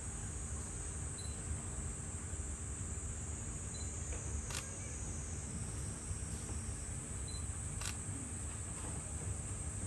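Two camera shutter clicks about three seconds apart, over a steady high drone of insects and a low background rumble.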